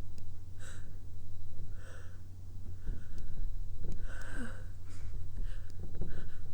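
A woman's short sniffs and breaths through the nose, about seven in all, the strongest about four seconds in, as she tries to bring on a sneeze with lemon balm. A steady low hum runs underneath.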